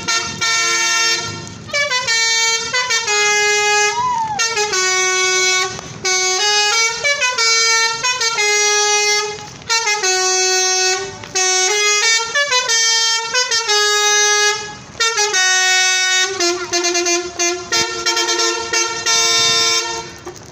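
Tour bus's telolet horn, a multi-tone musical air horn, playing a quick tune of stepped notes over and over in phrases with short breaks between them.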